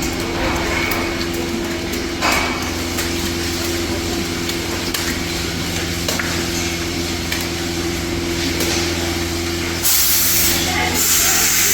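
Milking parlour machinery running: a steady hum from the vacuum system with a few faint clicks. About ten seconds in, a louder hiss starts.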